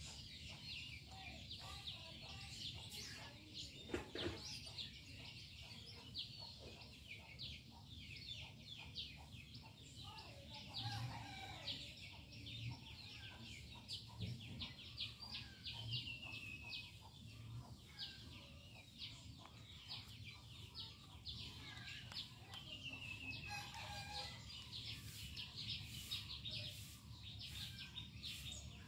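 Faint outdoor birdsong: many small birds chirping in quick short calls, with a few falling whistles, and chickens clucking at times.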